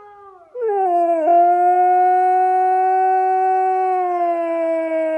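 Siberian husky howling along with a husky howl playing from a phone: a quieter howl from the phone's speaker fades out about half a second in, then the dog's own loud howl starts, slides down in pitch, holds one long steady note and sinks slowly near the end.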